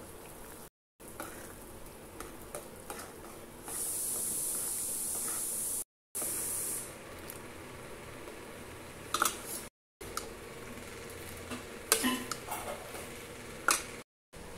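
A metal ladle stirring thick curry in a metal pot, with a few sharp clinks of the ladle against the pot later on. For about three seconds a louder steady hiss, like sizzling, comes up and then cuts off.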